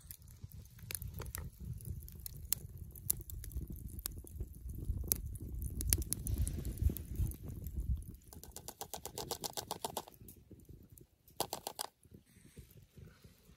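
Wood fire burning in a small folding titanium stove: a low rumble of flame with sharp crackles and pops. About eight seconds in the rumble drops away, leaving a fast run of small crackles from the glowing coals, with a short louder burst a little later.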